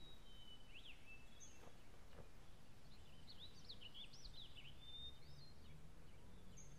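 Faint birdsong in a quiet garden: scattered short chirps and whistles, bunched together around the middle, over a low steady background hum.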